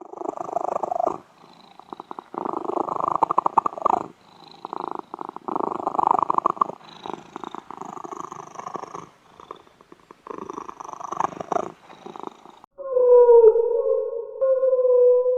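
Domestic cat purring in repeated rough bouts of a second or two each, rising and falling with its breathing. Near the end the purring stops and a held musical tone begins.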